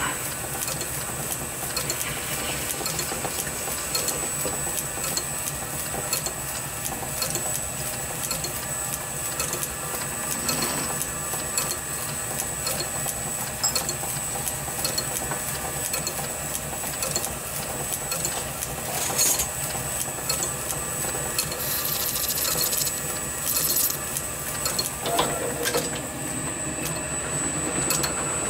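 Small metal lathe running steadily, its motor and gear train whirring with a constant high whine and fine rapid ticking, while taking a very light finishing cut on a brass flywheel.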